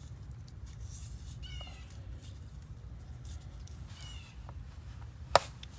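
A cat meowing twice, short high-pitched calls about a second and a half in and again about four seconds in. A single sharp click near the end.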